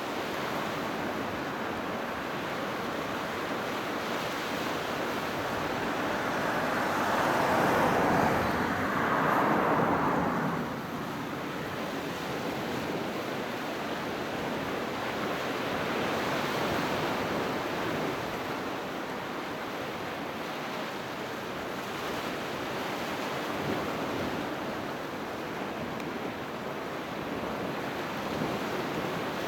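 Sea waves breaking on a shore: a steady wash of surf, with one bigger wave surging loudest about seven seconds in and falling away near the ten-second mark.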